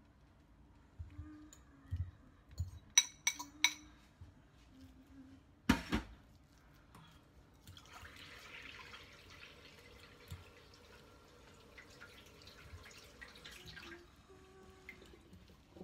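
A metal fork clinking against ceramic bowls, three quick clinks about three seconds in and a louder knock about six seconds in. Then a soft, steady scraping as the fork mashes boiled purple sweet potato in the bowl.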